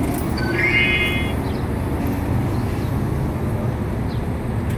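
Steady low rumble of street traffic. A brief high-pitched tone sounds about half a second in and lasts under a second.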